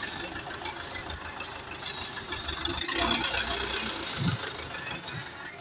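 An engine running steadily at idle, with a short low thump about four seconds in.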